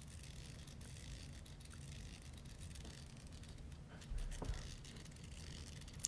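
Faint handling and rustling close to the microphone, with a few soft ticks and a low bump about four seconds in.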